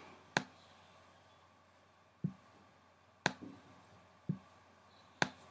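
Computer mouse clicking: five short, sharp clicks about a second apart, two of them duller than the rest.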